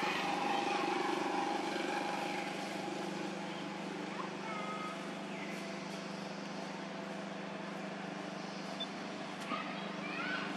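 A steady motor hum, like an engine running, with a few faint short high chirps over it.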